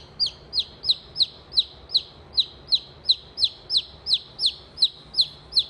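A French Copper Marans chick peeping loudly and steadily, about three high, downward-sliding peeps a second.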